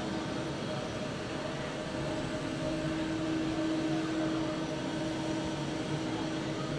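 Distant jet airliner engines running at taxi power: a steady hum carrying a held tone that swells a little about three seconds in.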